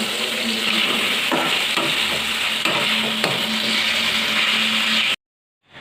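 Chicken pieces sizzling steadily as they fry in hot oil in a kadai, with a few sharp knocks of a spatula turning them. A faint low hum sits under the sizzle, and the sound cuts off abruptly near the end.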